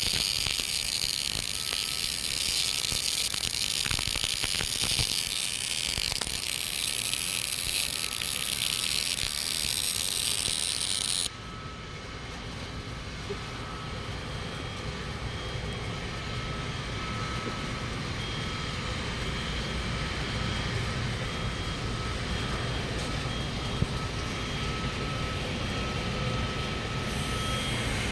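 GMAW (MIG) welding arc running an open root pass, a steady dense crackle and hiss that cuts off suddenly about eleven seconds in. A steady low machine hum carries on after it.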